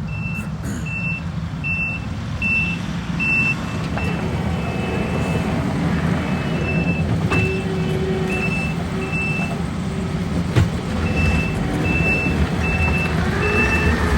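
Backup alarm on heavy construction equipment beeping about once every 0.7 seconds over a running diesel engine, pausing twice, with the engine growing louder near the end.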